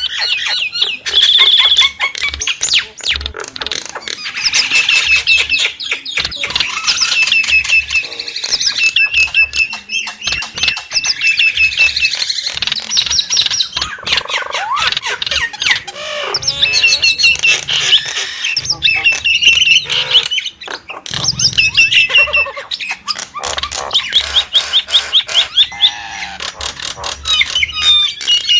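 Nias hill myna singing continuously: a long, loud run of whistles, squawks and fast repeated chattering notes, broken by brief pauses.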